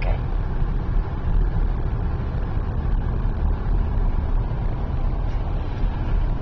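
Steady road and engine noise inside a Volvo car's cabin while driving on a highway: an even, low rumble that does not change.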